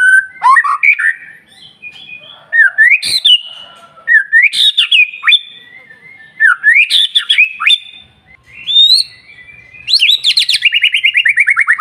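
White-rumped shama singing loud, sliding whistled phrases about once a second. Near the end it breaks into a fast, rattling trill of repeated notes that falls in pitch.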